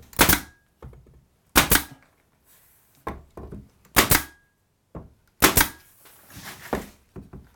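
Pneumatic finish nailer firing nails through the head trim into the wall framing: about four sharp shots a second or two apart, with quieter knocks between.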